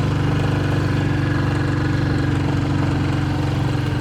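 Motorcycle engine running at a steady speed while riding, a constant low drone with a fast, even firing pulse.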